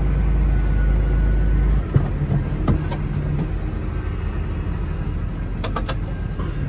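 Farm machinery running while chopping maize: the tractor and forage harvester engines make a steady low drone. About two seconds in the deepest hum drops away and there is a sharp knock, with a few more clicks and knocks later.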